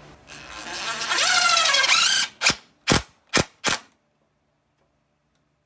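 Cordless DeWalt impact driver hammering a screw into a cedar shelf board for about two seconds, its pitch rising as it runs, then four short bursts as the screw is snugged home.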